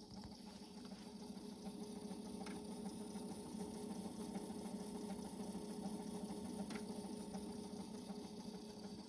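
Cassette deck transport mechanism running steadily: a small motor whirring with a steady hum and a few faint clicks.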